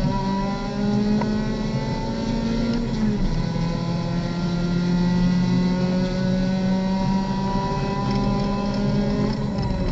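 Race car engine heard from inside the cockpit, accelerating hard: its pitch climbs, drops with an upshift about three seconds in, then climbs steadily again through the next gear.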